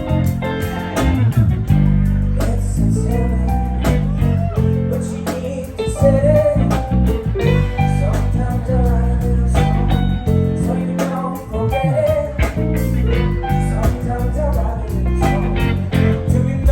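Live band playing: guitar over a bass line and a steady drum beat.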